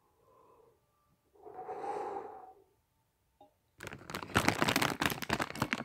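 A person breathing hard into cupped hands, two soft breaths with the second louder. Then about two seconds of loud crackling noise that cuts off suddenly.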